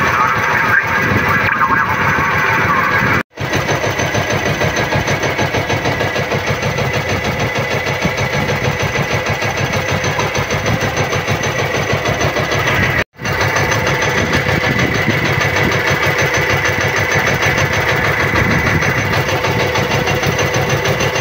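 Small fishing boat's engine running steadily with a fast even pulse, cutting out for a moment twice.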